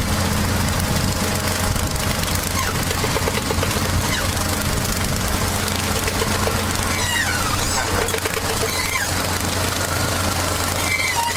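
A farm machine's engine running steadily with a deep, even drone. A few short high chirps about seven to nine seconds in.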